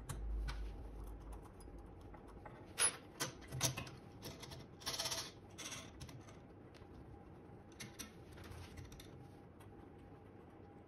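Scattered light clicks and knocks, with a short scrape about five seconds in, from a permanent magnet motor being fitted into the mounting bracket of a dynamometer test bench.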